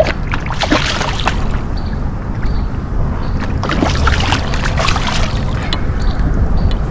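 Water splashing around a kayak in two spells over a steady low rumble of wind on the microphone. A faint high pip repeats about every half second.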